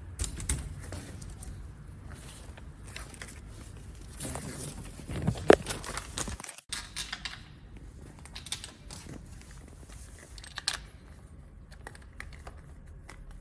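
Woven wicker loveseat armrest being handled and fitted onto the seat frame: scattered clicks, light knocks and rustles, with one sharper knock about five and a half seconds in.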